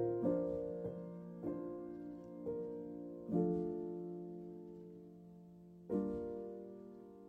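Background piano music: a slow run of single notes and chords, each struck and left to ring away, with a longer held chord from about three seconds in and another struck near the end.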